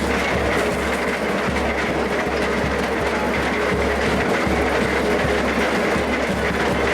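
Industrial carrot washing machine running steadily: a continuous mechanical noise with a few steady hum tones through it.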